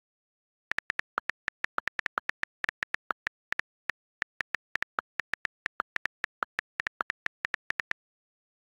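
iPad on-screen keyboard key clicks as text is typed: a quick, uneven run of short sharp ticks, about five a second, starting shortly after the beginning and stopping a little before the end, with dead silence between them.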